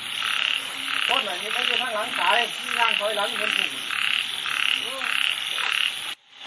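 Frogs calling in a chorus after heavy rain: a pulsing croak repeating about twice a second, with wavering calls over it from about a second in. It cuts off suddenly near the end.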